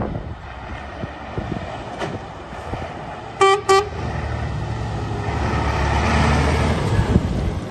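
Scania P94 230 flatbed truck giving two short horn toots as it approaches, then its five-cylinder diesel engine running steadily and growing louder as the truck drives up and turns past, before fading.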